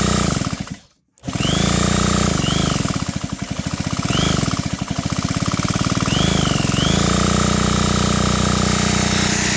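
Electric drill spinning a Stihl chainsaw engine over through its crankshaft, run counterclockwise to test the ignition coil with a spark tester. It stops briefly about a second in, then starts again, and its speed rises and falls in the middle.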